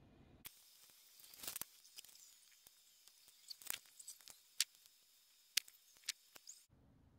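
Fast-forwarded, sped-up recording: the steady low room background cuts out about half a second in and returns near the end. In between, small handling sounds play back as a string of faint, sharp clicks and short high squeaks.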